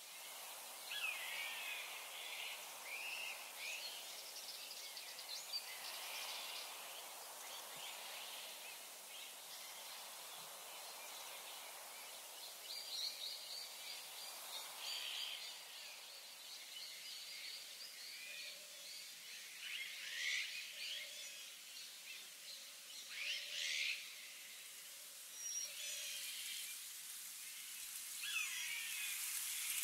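Wild birds singing and calling, short swooping phrases every few seconds, over a steady high hiss.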